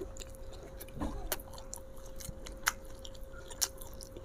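Close-up chewing of raw mature jengkol beans, with three sharp, crisp crunches spread through the chewing.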